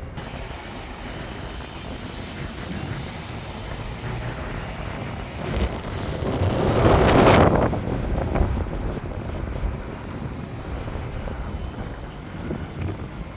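Wind rumbling on the microphone, with a louder rush that swells about six seconds in and fades two seconds later.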